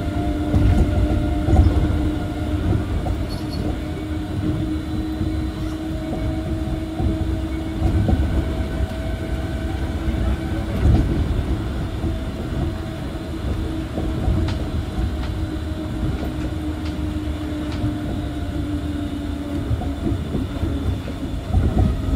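Osaka Monorail 1000-series train with field chopper control running at steady speed, heard inside the car: its rubber-tyred bogies rumble on the guideway beam under a steady motor hum, with a few light clicks.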